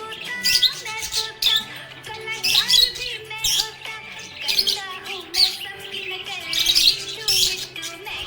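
Budgerigars chirping, with short, high chirps and warbles every second or so, over background music.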